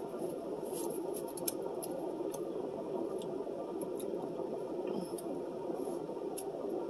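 Close-up eating sounds: a plastic fork clicking and scraping as it picks up food, with chewing, heard as scattered short sharp clicks. They sit over a steady low hum inside a car cabin.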